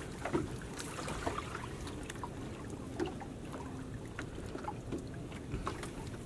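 Water trickling and dripping off a wet fishing net as it is hauled over the side of a wooden boat, with scattered small taps and splashes from the net and hull.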